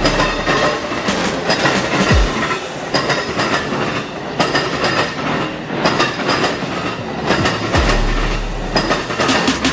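Train wheels clacking over a railroad diamond crossing as a train rolls through: loud, sharp knocks that come mostly in pairs, about once a second.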